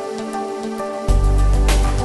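Instrumental background music with held tones; a deep bass layer comes in about a second in and the music gets louder.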